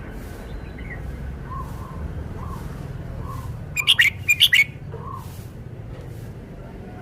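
Red-whiskered bulbul singing: a quick, loud phrase of five or six short notes a little past halfway, with soft short calls repeating about once a second around it.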